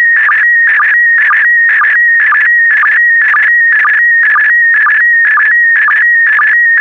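PD120 slow-scan television (SSTV) signal sending an image: a steady tone near 2 kHz that shifts slightly as picture data is sent, broken about twice a second by a short lower sync pulse, one for each pair of picture lines.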